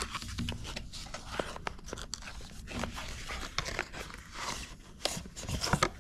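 Cardboard packaging handled by hand: a sticker seal lifted and an inner box slid out of its card sleeve, with rustling and scraping of card and many small clicks.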